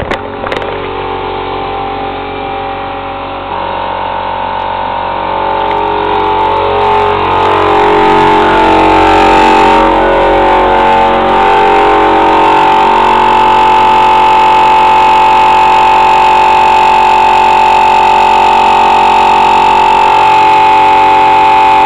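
Air compressor motor running with a steady hum, growing louder over the first several seconds and then holding level, as it supplies air for spray painting.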